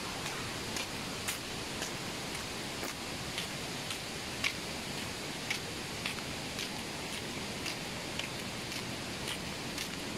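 Steady hiss of falling water with scattered sharp ticks at irregular intervals, roughly two a second.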